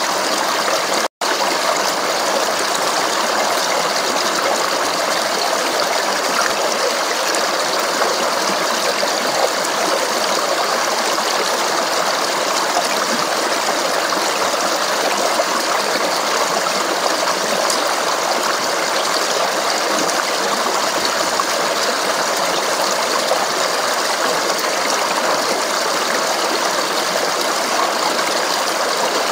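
Steady babbling and splashing of a flowing stream, cutting out for an instant about a second in.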